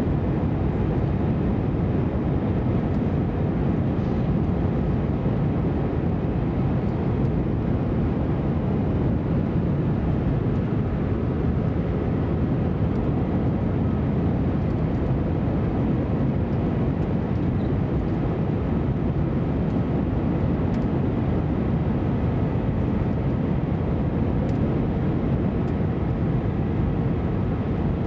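Airbus A320 cabin noise on approach, heard from a window seat beside the engine: a steady, even rumble of engine and airflow with a faint steady hum above it.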